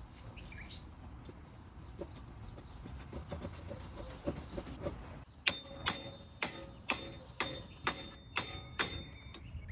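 Hammer blows on metal, about two a second and very even, each strike ringing briefly, starting about five seconds in; before that, a low rumble with a few faint taps.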